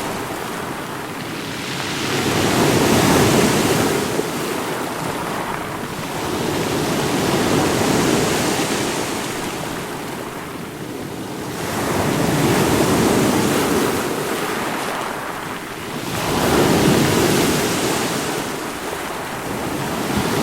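Continuous rushing water that swells and ebbs slowly, rising to a peak about every four to five seconds.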